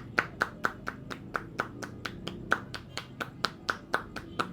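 Hands slapping and tapping on a head in a rhythmic barber's head massage: sharp claps about four a second, some louder than others.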